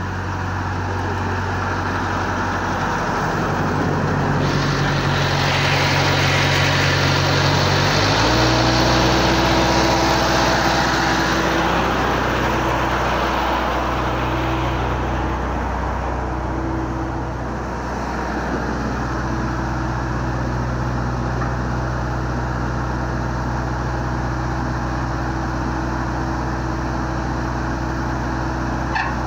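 The diesel engine of a sewer-jetting tanker truck runs steadily, driving its pump and hose-reel gear. The engine speed steps up about eight seconds in. A hiss sits over the engine for several seconds around then.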